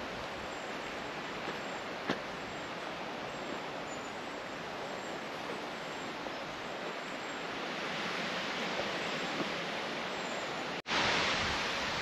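Steady outdoor rushing noise with a few faint ticks. It cuts out abruptly near the end and comes back louder and brighter.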